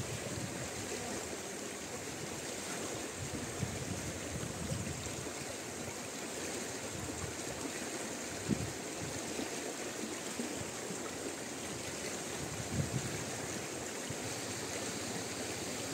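River water rushing steadily over rocks, with a couple of brief low bumps about halfway and near the end.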